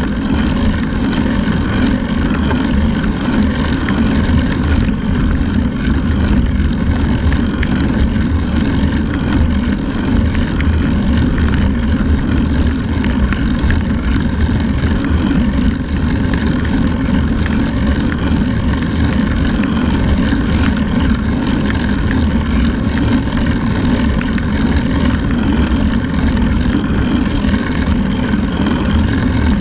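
Steady, loud wind rumble on the microphone of a camera mounted on a moving road bike's handlebars, with no break in it.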